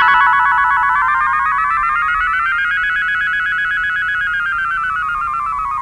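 Electronic synthesizer tone, the drawing sound effect heard while the letter U is drawn on screen. One sustained buzzy tone starts abruptly, glides slowly up in pitch, then sinks back down over about six seconds.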